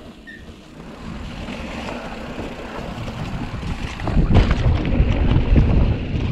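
Mountain bike riding over a dry trail covered in fallen bamboo leaves: tyre noise and rattles from the bike, with wind buffeting the camera's microphone. It gets louder and rougher about four seconds in.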